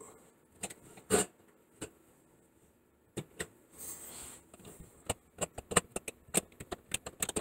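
Hands fitting a plastic sink drain assembly and tailpiece onto a P-trap: scattered clicks and knocks of plastic parts, a louder knock about a second in, a short scraping rub about four seconds in, then a quicker run of small clicks.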